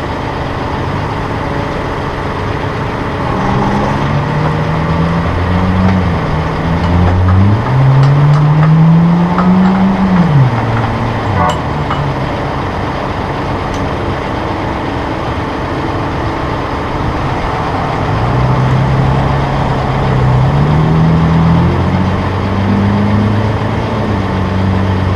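Massey Ferguson 1742 compact tractor's 42-horsepower diesel engine idling steadily, with a low hum that rises and falls in pitch twice and a light click about halfway.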